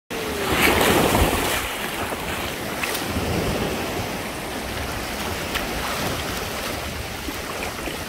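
Small waves washing onto a sandy beach and shallow sea water sloshing, with wind buffeting the microphone; loudest about a second in.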